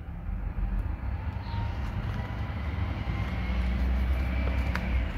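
Low, steady engine rumble, slowly growing louder, with a faint click near the end.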